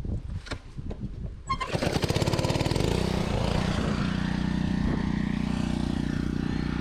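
Pressure washer starting up about one and a half seconds in and running steadily, driving a foam cannon.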